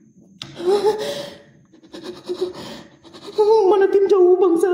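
A person's wordless voice: a short vocal sound about half a second in, then a long held, wavering tone from about three and a half seconds in, like humming or singing without words.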